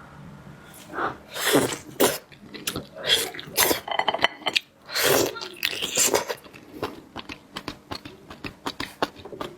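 Close-miked eating: slurping and chewing oysters, with several hissing slurps and many wet smacks and clicks of the mouth.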